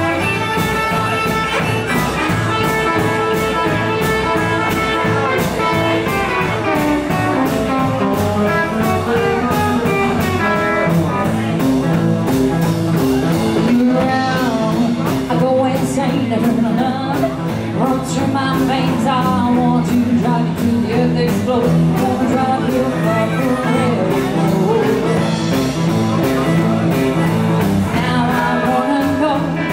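Live band playing an upbeat blues and rock-and-roll number on electric guitar, acoustic guitar, upright bass and drums, with a singer over a steady beat.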